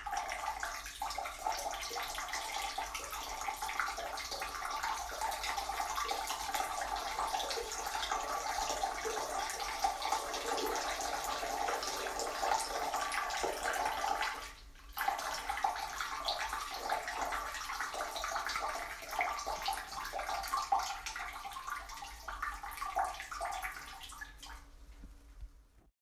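A man's stream of urine splashing into the water of a toilet bowl. It runs steadily, breaks off for a moment about fifteen seconds in, then starts again and tapers off near the end.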